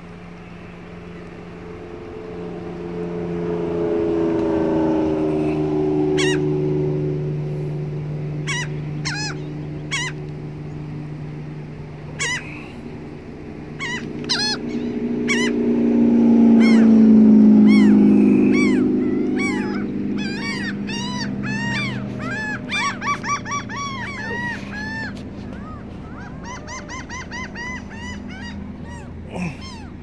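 Laughing gulls calling: short rise-and-fall notes, singly and in quick runs, coming thickest in the second half. Under them a low drone swells twice and slides down in pitch, loudest about two-thirds of the way through.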